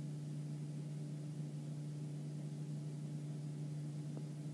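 Steady low electrical hum with faint hiss: the recording's background tone, with nothing else happening.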